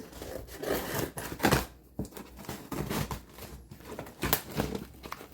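A box being opened by hand: a run of short scraping, tearing and rustling noises as the packaging is cut and pulled open.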